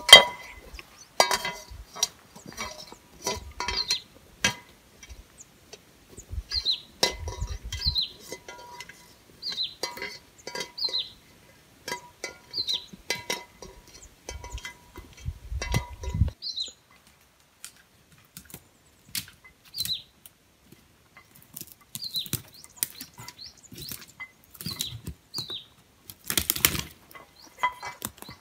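Metal gear on a walking hiker's backpack clinking and ringing in an uneven rhythm, with a few low thuds of steps, until about halfway through, and a short burst of clinking again near the end. A bird repeats a short, high, falling call every second or two.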